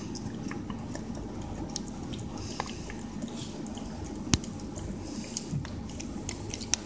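A cat licking and lapping Churu, a soft puree treat, from a bowl: an irregular run of small wet clicks and smacks, with one sharper click about four seconds in.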